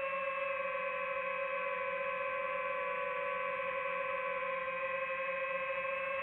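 Steady whine of a drone's propellers and motors while it hovers: one unchanging pitch with several overtones and a faint low pulsing under it.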